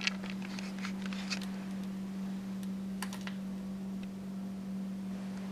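Handling noise from a handheld camera being moved: light clicks and taps, a cluster in the first second and a couple more about three seconds in, over a steady low electrical hum.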